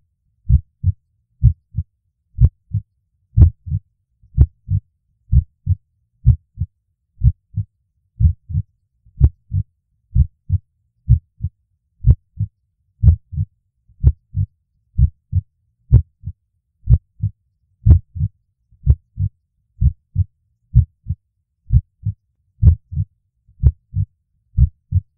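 A heartbeat: pairs of low, soft thuds repeating steadily about once a second.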